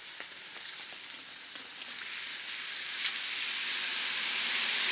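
Car tyres hissing on wet asphalt, growing steadily louder as the car approaches. There are a few faint crackles in the first moments.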